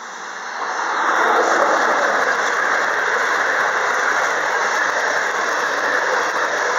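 Passenger train running in alongside the platform, steel wheels on the rails with a high squeal over a steady rush, getting louder about a second in as the carriages reach the platform. The train is arriving to stop at the station.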